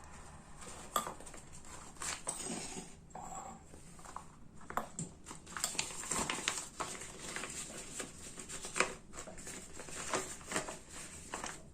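Meringue being scooped from a mixing bowl into a plastic piping bag: irregular light scrapes and taps of a utensil on the bowl, with crinkling of the bag.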